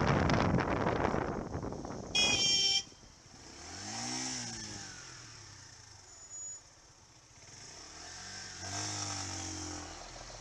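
Motorcycle on the road heard through a helmet camera: wind noise on the microphone fading over the first two seconds, a single short horn blast about two seconds in, then the engine revving up and back down twice.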